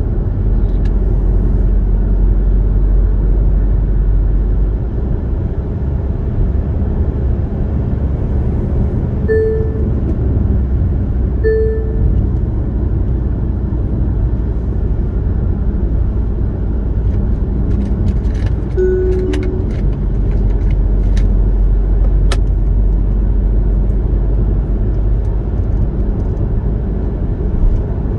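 Car driving at highway speed: steady road and engine noise. Two short beeps come about two seconds apart near the middle, followed a little later by a short two-note tone.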